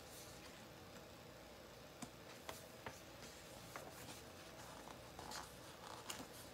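Very quiet room with a few faint ticks and soft paper rustles from a picture book being handled between pages.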